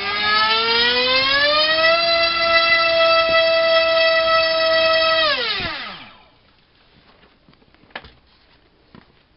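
Multistar Viking 1808 2600kV brushless outrunner motor spinning a Gemfan 6045 carbon-reinforced nylon prop on a 3S battery in a thrust test. It gives a high whine that rises in pitch as it throttles up over the first two seconds and holds at a steady pitch for about three seconds. It then falls in pitch as it is throttled off and stops about six seconds in. A faint click follows near the end.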